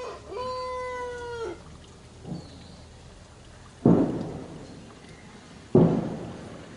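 Baby macaque crying in a long, high, wavering wail, followed by two loud thumps about two seconds apart, each dying away over about a second.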